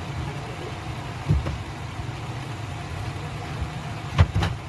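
A steady low rumble, like a motor or traffic running in the background, with a soft knock about a second in and two quick, sharper knocks near the end.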